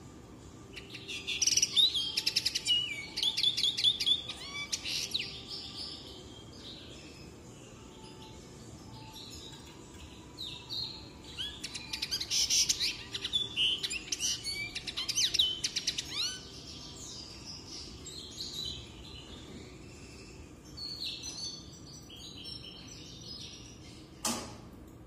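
Male common linnet singing: three bursts of fast twittering song with trills, the first two loudest. A single short knock sounds near the end.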